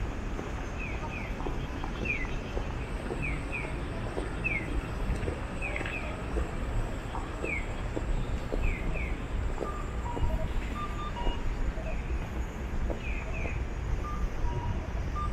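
Electronic bird-chirp pedestrian crossing signal, a Japanese 'piyo-piyo' crossing tone, sounding short falling chirps about once a second, alternating a single chirp with a quick pair, over a steady low rumble of street traffic.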